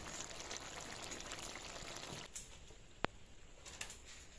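Fish and greens curry simmering in a metal kadai, a steady bubbling hiss for about two seconds that then drops away; a single sharp click about three seconds in.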